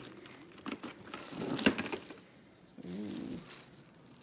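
Clicks and plastic rustling as a large Snap-on screwdriver is pulled out of its moulded plastic holder tray, with one sharp click about one and a half seconds in. A brief voice sound follows a little before three seconds.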